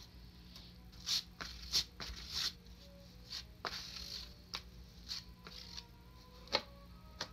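Plastic spreader scraping and tapping through body filler on a cardboard mixing board as the filler is stirred with its hardener, in short irregular strokes.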